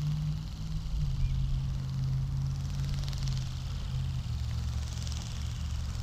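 A steady low motor hum that drops a little in pitch about four seconds in, with a faint hiss above it.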